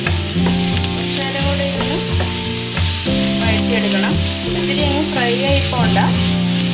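Chopped onions sizzling in hot oil in a nonstick frying pan, stirred and scraped with a wooden spatula. Background music with a repeating bass pattern and a wavering melody plays along.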